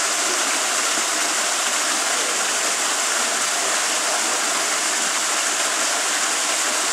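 A steady rushing hiss, even and unbroken, with no distinct calls, knocks or other events standing out.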